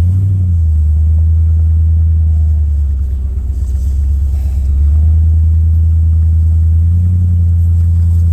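Steady low rumble of a running motor, easing off a little about three seconds in and coming back up about five seconds in.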